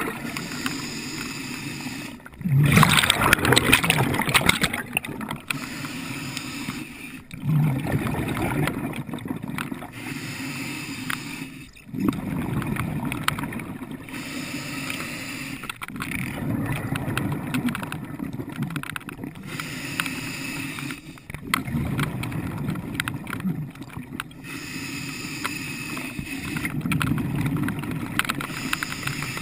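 Muffled underwater water noise, heard through a submerged camera, swelling and dipping in surges every few seconds, with the loudest rush about two to five seconds in.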